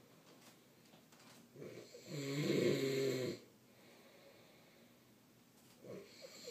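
A man snoring: one loud, drawn-out snore about two seconds in, with a wavering pitch, then quiet breathing before the next snore starts near the end.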